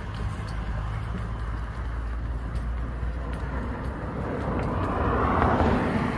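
A minivan driving past on the road, its tyre and engine noise swelling as it approaches, loudest about five and a half seconds in, then starting to fade.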